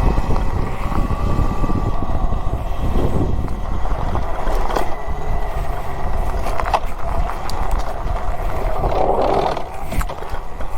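Wind rushing over the microphone and tyres running on a dirt trail as a Talaria Sting electric dirt bike is ridden, with a faint steady whine and a few sharp knocks, about two-thirds of the way in and near the end.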